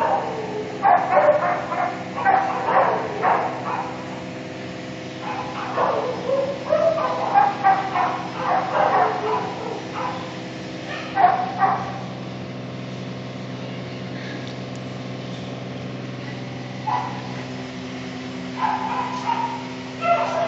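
Shelter dogs barking and yipping in clusters of calls, with a quieter pause a little past the middle, over a steady low hum.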